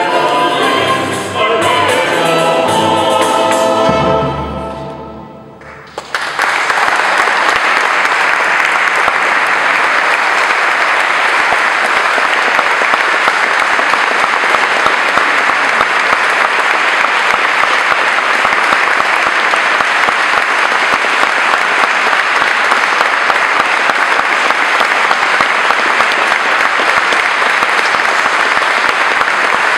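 Mixed choir and early-music ensemble sing and play to a final chord that dies away about five seconds in. An audience then applauds steadily.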